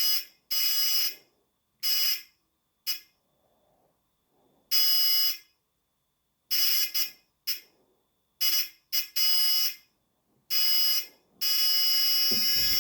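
Small electronic buzzer on a home-soldered vero board circuit sounding a steady, shrill tone in short, irregular bursts, switched on and off by hand, with one longer sustained buzz near the end: the finished circuit working.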